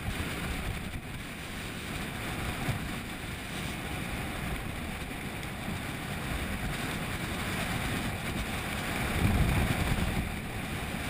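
Steady wind rushing over the microphone on the deck of a catamaran at sea, with the low rumble of the boat and water beneath it. A stronger gust comes a little before the end.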